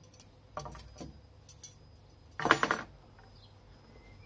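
Small bent metal-rod stove accessories (trivet and toaster pieces) clinking as they are shaken out of a small cloth bag onto a wooden table: a few light clinks, then a louder jangle about two and a half seconds in.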